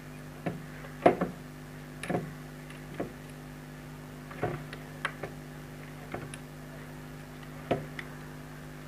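Irregular small clicks and taps of insulated wires being twisted together and handled inside a plastic extension box, the loudest about a second in.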